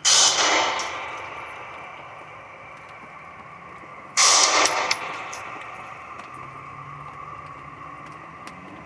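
Two pistol shots about four seconds apart, each followed by a long echo dying away in the enclosed indoor range.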